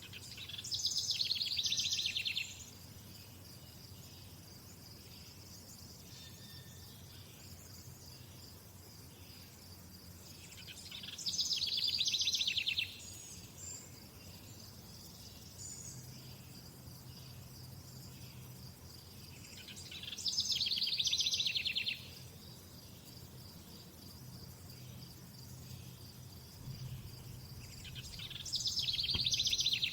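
A steady, high cricket trill runs throughout, while a songbird sings a rapid phrase of about two seconds four times, roughly every nine seconds.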